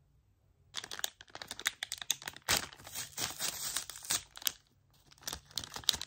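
Packaging being crinkled and rustled by hand, starting under a second in and going on in quick, irregular crackles, with a brief pause near the end.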